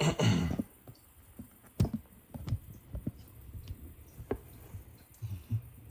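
Handling noise: a short rustle at the start, then scattered clicks and light knocks as something is fiddled with and set back in place.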